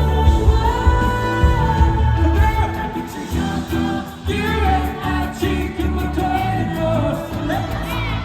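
Live pop concert performance: a male singer's vocals over a band backing track with heavy bass, heard through the venue's sound system. The heavy bass thins out about three seconds in.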